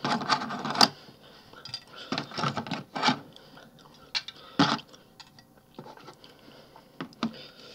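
Hard plastic toy parts clicking and clattering as they are handled and pushed aside: a burst of clatter at the start, another about two to three seconds in, then a few single sharp clicks.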